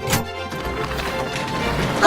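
Instrumental background music from an animated children's cartoon, with a noisier rushing texture building underneath in the second half.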